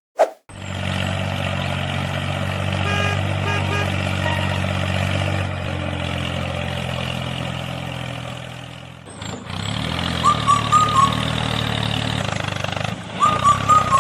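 A mini tractor's engine sound runs steadily, dropping away and breaking off about nine seconds in, then starting again. Short chirping beeps come twice after the break.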